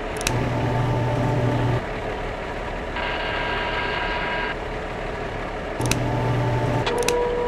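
Designed machine sound effects for an animated toy tow truck: a steady engine drone with short stretches of motor whirring, a higher whine in the middle, and a few sharp clicks as its crane and tow mechanism move.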